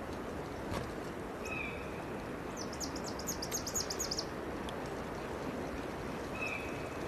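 Open-air outdoor ambience with a bird calling: a quick run of high chirps lasting about a second and a half near the middle, and two single short high notes, one before and one after.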